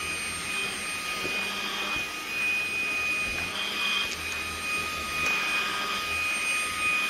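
Dreame V11 cordless stick vacuum running steadily, a rushing suction hiss with a constant high whine from its motor, as its wide head is pushed over a fabric pillow.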